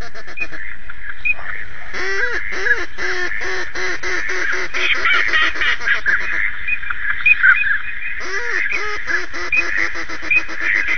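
Ducks quacking: two runs of loud quacks that fall in pitch, about two seconds in and again near eight seconds, over continuous chattering calls from many waterfowl.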